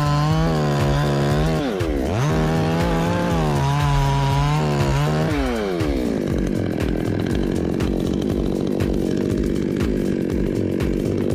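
Two-stroke chainsaw running at high revs, dipping briefly about two seconds in and picking up again, then dropping about five and a half seconds in to a lower, rougher running.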